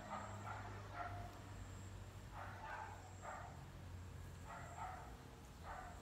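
A dog barking in short barks, singly and in pairs about every second, over a faint steady low hum.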